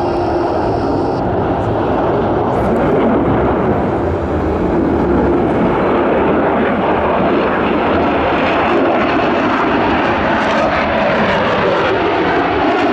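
Sukhoi Su-35 fighter's twin Saturn AL-41F1S afterburning turbofans during a flying display: a loud, steady jet rumble and roar that fills the whole stretch without breaks.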